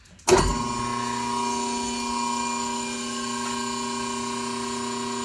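A 7.5-horsepower rotary phase converter is switched on: it starts with a sudden thump about a third of a second in, then settles into a steady electric motor hum made of several fixed tones.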